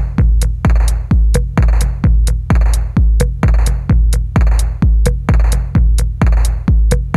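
Electronic dance music with a heavy, steady kick drum at about two beats a second and sharp hits between the beats.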